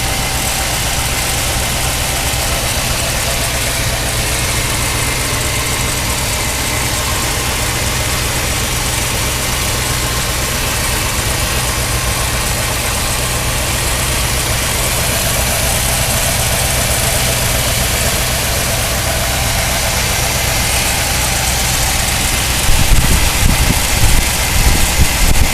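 A 1963 Ford Thunderbird's 390 cubic inch V8 idling steadily. About three seconds before the end, uneven loud low thumps come in over it.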